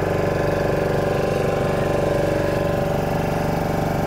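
A small fishing boat's engine running steadily with the boat under way: an even drone with a fast regular pulse.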